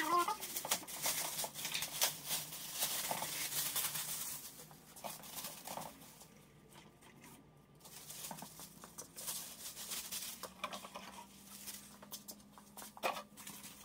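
Plastic wrapping crinkling and rustling as it is pulled off a new machine part, busy for the first few seconds and then quieter and more scattered.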